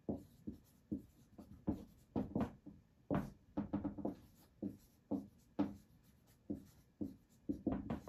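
Someone writing by hand: a string of short, irregular scratching strokes, one to three a second.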